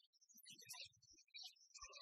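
Near silence, with only faint, scattered short tones and soft thumps.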